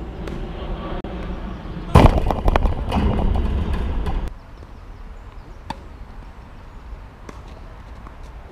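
A steady low rumble, then about two seconds in a sudden loud rush of noise that holds for two seconds and cuts off abruptly. After it, a few sharp single knocks of a tennis ball on strings or court.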